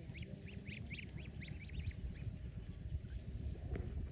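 Lion-head cross goslings peeping: quick, short, high chirps, several a second, over a low background rumble.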